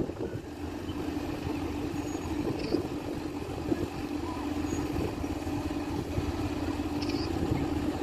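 A motor running steadily with an even, unchanging hum, with a few brief faint high chirps over it.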